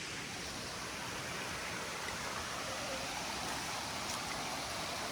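Steady rush of flowing water from a stream or waterfall.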